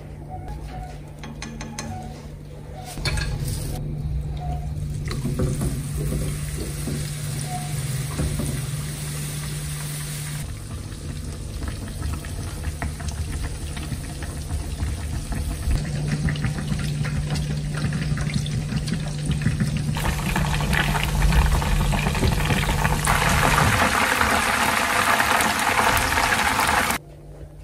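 Water running from a kitchen tap, in several stretches that change abruptly. It is strongest in the last few seconds and stops suddenly near the end.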